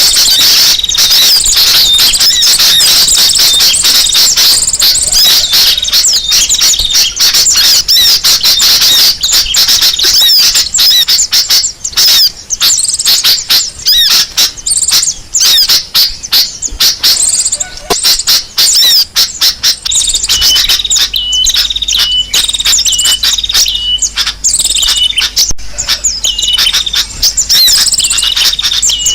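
Bird-lure recording of many small birds calling at once: a dense, noisy mass of rapid high chirps and twitters. From about two-thirds of the way in, one short call note repeats over and over at a steady pitch.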